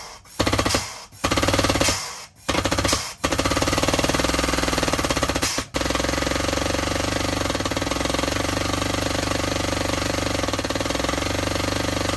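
Air-over-hydraulic pump of a shop press running in several short bursts, then steadily for about nine seconds with one brief break, as the press works the rear hub bearing and retainer on a Toyota TownAce truck's axle shaft.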